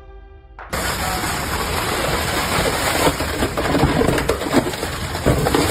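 Industrial machinery running with a dense rattle and many scattered small knocks and clatters, cutting in suddenly under a second in.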